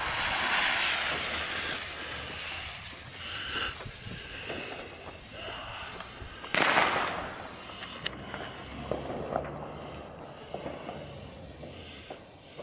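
Firework fizzing and crackling: a loud fuse-like hiss about two seconds long as it is lit, then a steady fizz with scattered crackles, a short louder whoosh about seven seconds in and a few sharp cracks soon after, as the Weco Color Stars fountain gets going.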